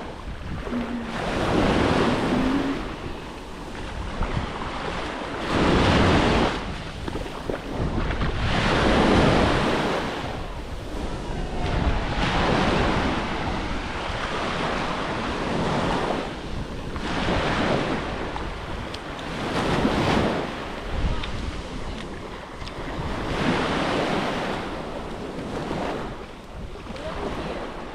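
Small sea waves breaking and washing up the beach, swelling and falling every few seconds, with wind buffeting the microphone.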